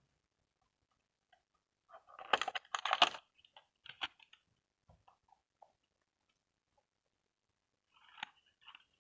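Toy mini refrigerator and its small pieces being handled: a dense run of crackling and clicking about two seconds in, a few scattered clicks after it, and another short cluster of clicks near the end.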